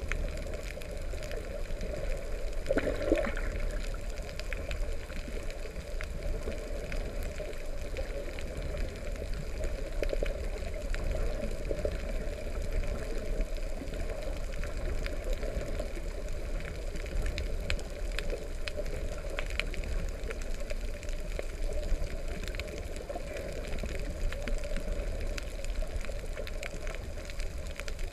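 Muffled rush of seawater heard underwater, steady, with scattered faint clicks and a brief louder burst of water noise about three seconds in.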